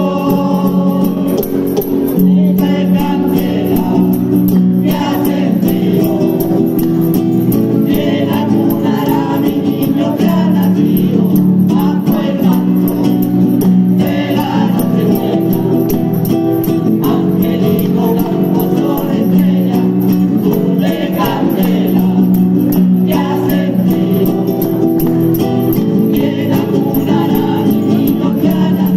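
Andalusian rociero choir singing a Christmas carol (villancico) in Spanish style, accompanied by classical guitar and hand clapping (palmas).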